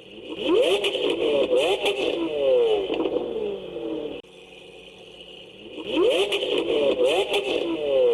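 An engine revving up and falling back, the same rev played twice in a row about five seconds apart.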